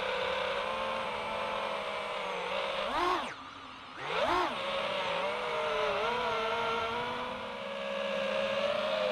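Motors of an iFlight Titan DC5 five-inch FPV quadcopter whining in flight at a steady pitch. Just after three seconds in the pitch jumps, then the sound drops away for under a second and surges back up before settling again.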